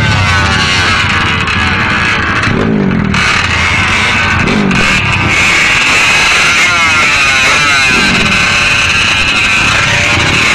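Small racing motorcycle engines revving hard over and over, their pitch rising and falling with each throttle blip over a constant engine din.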